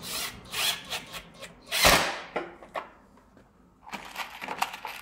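Irregular knocks, clicks and rattles of wood and metal from handling the wooden pallet that carries the engine, with one heavier thump about two seconds in and another cluster of clicks near the end.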